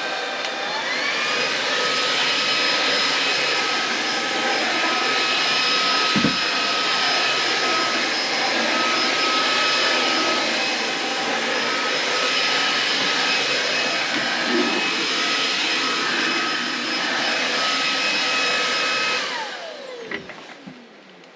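Cordless stick vacuum with a 280 W brushless motor, running with a steady high whine. Its pitch rises about a second in and holds, then winds down as the vacuum is switched off near the end. There is a single knock about six seconds in.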